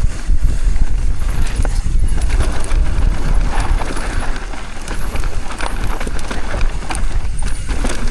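Mountain bike descending a loose, dusty trail: wind rumbling on the microphone, with tires on dirt and the bike clattering and knocking over rough ground.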